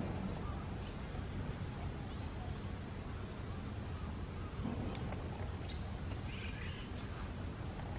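Red-rumped swallow giving short call notes (not song) at intervals, with a small cluster of notes a little before the end, over a steady low background rumble.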